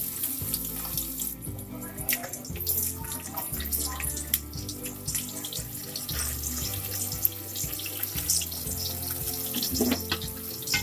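Sliced onion frying in hot oil in an aluminium pot: a steady sizzle full of small crackles that starts suddenly as the onion hits the oil.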